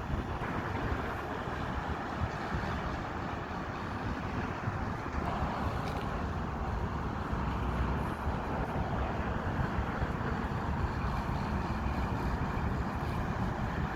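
Helicopter in flight, heard from on board: a steady wash of engine and rotor noise.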